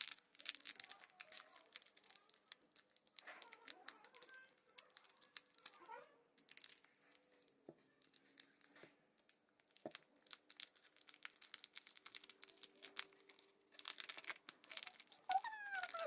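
Plastic packaging crinkling and tearing in irregular crackles as a slime or putty toy is opened by hand.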